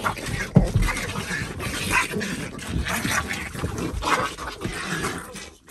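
Small dogs scuffling and growling as they fight, with irregular bumps and rustling on the bedding.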